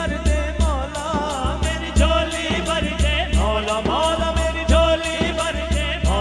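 Pakistani devotional folk music: a hand-played dhol beating a steady rhythm with deep low strokes, under a brisk rattling beat of about four ticks a second and a wavering melody line.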